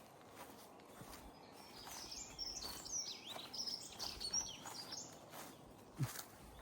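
A small songbird singing a rapid, twittering run of high, quickly sliding notes for a few seconds.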